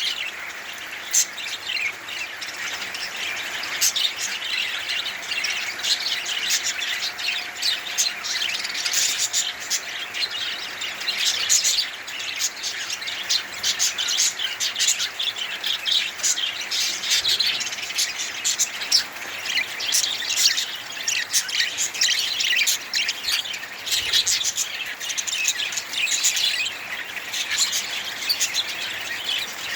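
Budgerigars chirping and chattering: a dense, continuous stream of quick high chirps from the birds.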